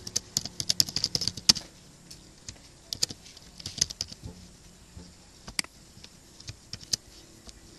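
Typing on a computer keyboard: a quick run of keystrokes for about the first second and a half, then scattered single clicks.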